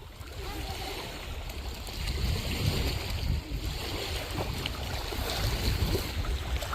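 Wind buffeting the microphone, a gusty low rumble over a steady wash of lapping lake water, getting louder about two seconds in.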